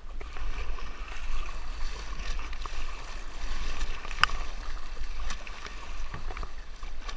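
Swift river water rushing and splashing around a kayak, with small scattered splashes and a sharp knock about four seconds in, over a steady low rumble.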